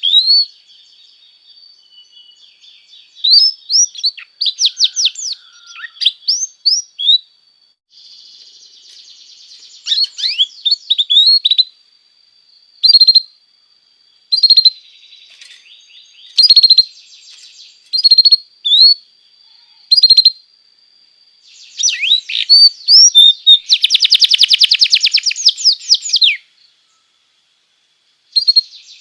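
Domestic canary singing: phrases of fast, repeated high notes and rolling trills broken by short pauses, building to a dense rapid trill about three quarters of the way through before a brief stop. It is a masteran song, played to tutor young canaries.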